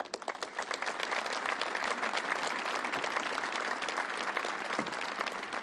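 Audience applause from a large seated crowd: many hands clapping in a dense, even patter that starts suddenly and dies away near the end.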